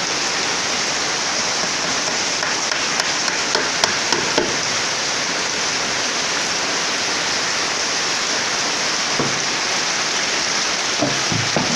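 Rain falling steadily, with a few faint knocks about three to four seconds in.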